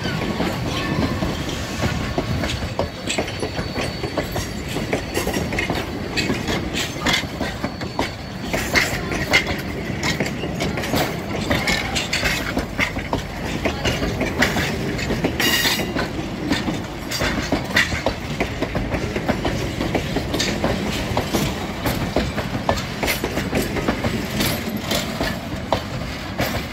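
A train of vintage steel passenger coaches rolling past, wheels clicking and clanking over the track in an irregular run of sharp knocks over a steady rumble.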